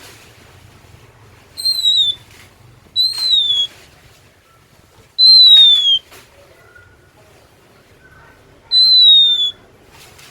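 Oriental magpie-robin (kacer) singing: four loud, clear whistled notes, each under a second long and falling slightly in pitch, spaced a few seconds apart, with a few faint softer notes between the last two.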